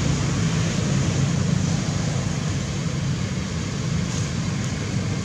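Steady outdoor background noise: a continuous low rumble with an even hiss over it, much like distant road traffic.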